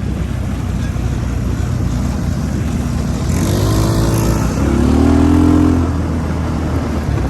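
200cc off-road go-kart engine running, revving up about three seconds in and easing back off near six seconds.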